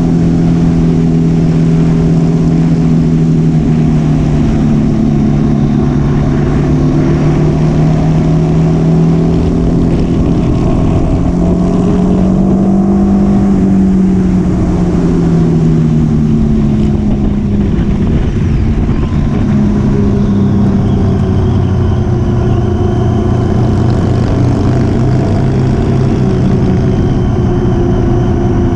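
Motorcycle engine running at a steady, moderate speed, its pitch easing up and down with the throttle: it climbs a little around twelve seconds in, falls back, and settles lower near the end.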